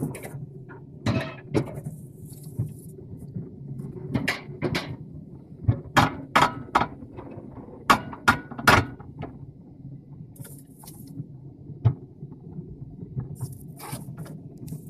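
Alpine coaster sled running down its tubular steel rails: a steady low rumble of the wheels on the track, broken by sharp irregular clacks and rattles, most of them bunched between about four and nine seconds in. Brief gusts of wind hiss on the microphone.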